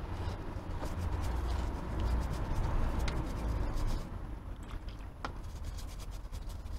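Stiff plastic chain brush scrubbing a motorcycle-type O-ring drive chain soaked in brake cleaner, a rough scratching rub with many small clicks, strongest for the first four seconds and then lighter, over a low rumble.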